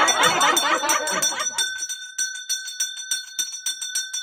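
Puja hand bell rung rapidly and evenly during the Pongal offering, a continuous ringing shake. Several voices overlap it in the first second and a half, then the bell goes on alone.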